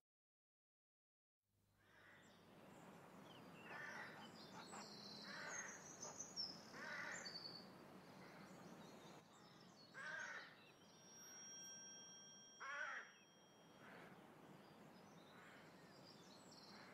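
Faint winter countryside ambience fading in: a few loud rasping bird calls, each about half a second long and spaced a second or more apart, over high thin chirps of small birds and a steady soft hiss.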